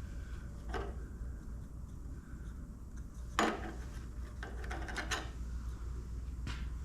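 A few sharp clicks and knocks of small hard parts being handled, the loudest about halfway through, over a steady low hum.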